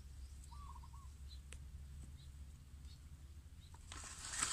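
Dry rice straw rustling as a hand works through it in a plastic basket, loudest near the end, over a low steady rumble. A bird chirps faintly once about half a second in.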